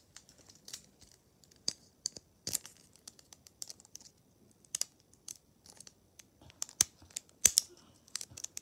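Small cardboard blind box being handled and worked open by fingers: irregular clicks, scrapes and rustles of the card, with a couple of sharper snaps a little before the end.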